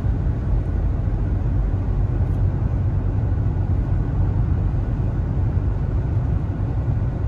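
Steady road and engine noise inside a moving car's cabin: an even low rumble that does not change.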